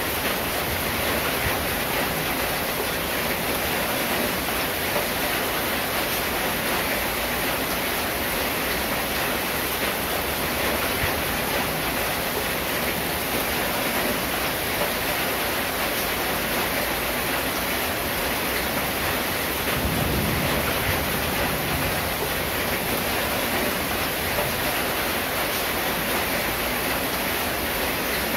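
Steady rain drumming on a corrugated zinc roof: a dense, even hiss without a break, briefly fuller in the low end about twenty seconds in.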